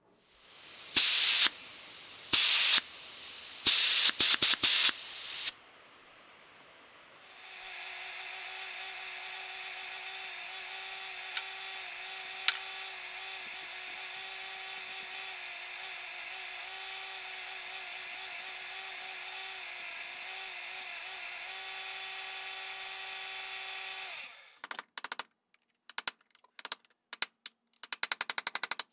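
A few short, loud bursts of noise, then an electric buffing wheel spinning with a steady motor hum for about 17 seconds while a small metal compressor-pump part is held to it for polishing. It stops abruptly and gives way to quick, irregular metal clicking and scraping as a hand tool works inside the bore of a cast-iron bearing end cover.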